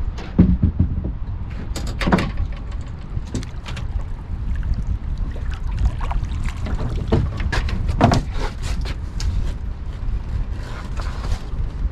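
Steady low wind rumble on the microphone, with irregular sharp knocks and clatters from something being handled, loudest about half a second, two seconds and eight seconds in.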